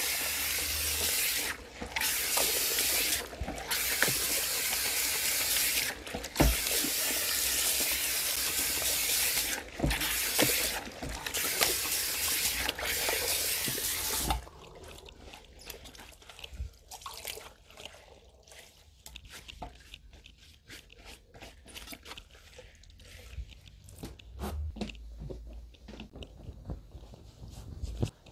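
Salon shampoo-basin hand sprayer running water through hair in a steady hiss, cut off briefly a few times and shut off abruptly about halfway through. Afterwards come softer scattered drips, taps and rustles of hands on wet hair.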